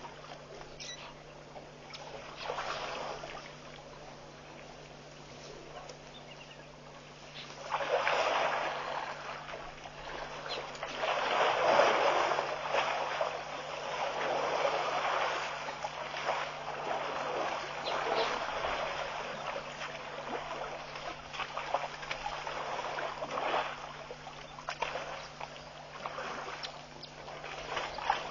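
African elephants wading in a shallow waterhole, the water sloshing and splashing around their legs in uneven surges. It is quieter for the first several seconds, then grows louder and is loudest about twelve seconds in.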